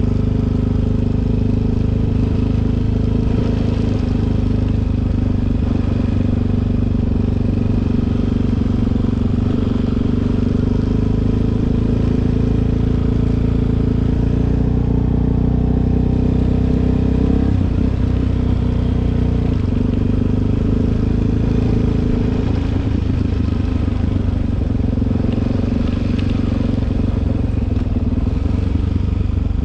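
Suzuki DR-Z400's single-cylinder four-stroke engine running steadily while riding, its engine note shifting a little a bit over halfway through.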